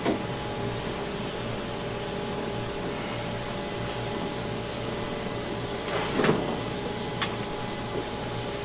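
Steady hum and hiss in the cab of steam locomotive 50 3648, standing with steam being raised. About six seconds in come a brief rustle of paper as the logbook is handled and a light click just after.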